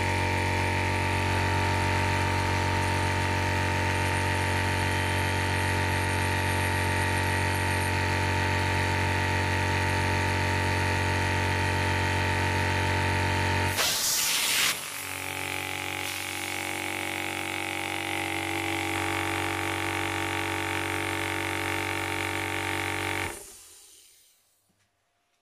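AceEagle 300 bar (4500 psi) high-pressure air compressor running with a steady hum while filling a PCP airgun. About 14 s in there is a brief loud hiss. The compressor then runs on, quieter and with a changed note, and about 23 s in it is switched off and winds down over a second.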